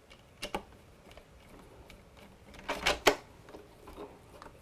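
Sharp clicks and clacks of small parts being handled while the K-cup puncture needle is screwed back into the coffee maker's plastic housing: one click about half a second in, and a louder cluster of knocks around three seconds in.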